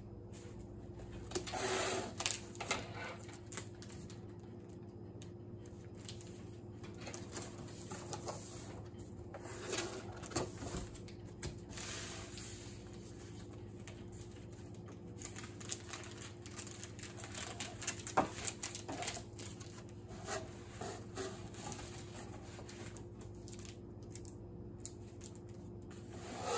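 Plastic sleeve crinkling and cardboard packaging rustling as a boxed laptop is slid out and handled, with scattered taps and bumps, one of them sharp about two-thirds of the way in, over a faint steady hum.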